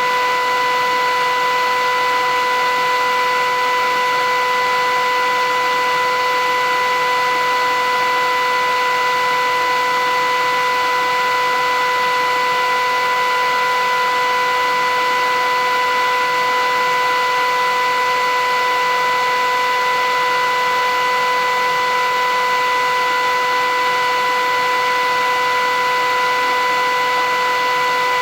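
Philips 8000 Series vacuum cleaner running steadily: a constant motor whine, several even tones, over a loud rush of airflow, with no change in speed or level.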